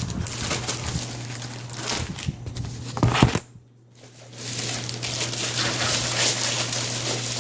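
Plastic crinkling and rustling as the case and its protective plastic film are handled, over a steady low hum. The sound breaks off briefly about halfway through.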